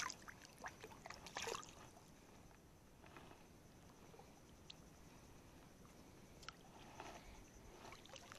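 Water splashing as a small needlefish is let go by hand into shallow water: a short splash at the start and another about a second later, then only faint water and handling sounds.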